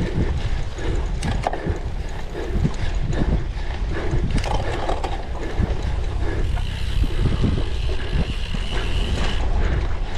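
A cyclocross bike rattling over rough ground: chain and drivetrain clatter with irregular knocks, over a steady low rumble of wind on the microphone. A higher buzz comes in about two-thirds of the way through and lasts about three seconds.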